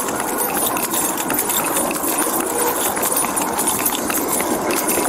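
Running footsteps on pavement with the gear and body camera jostling, a fast run of knocks and rattles over a steady rush of noise.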